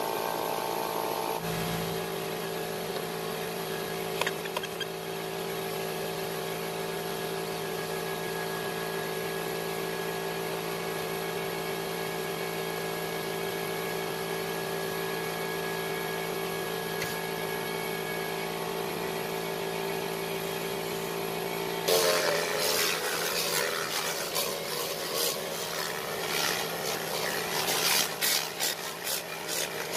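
Steady hum of an electric motor running. About three-quarters of the way through, it is joined by a louder hiss from a hose-fed trigger spray gun working over a cloth car seat, with uneven scrubbing strokes that come faster near the end.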